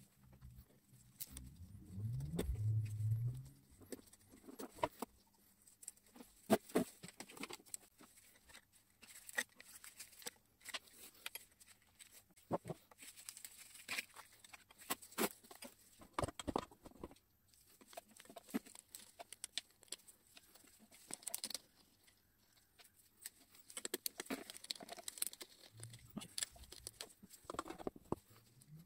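Scattered clicks, clinks and light knocks of small metal parts, wires and hand tools being handled while an old electric motor's terminal box is taken apart. There is a short low rumble about two seconds in.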